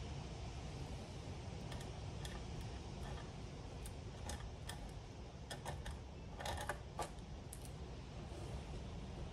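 Faint, scattered clicks and light scrapes of a palette knife against a small jar of texture paste and a card, over a low room hum.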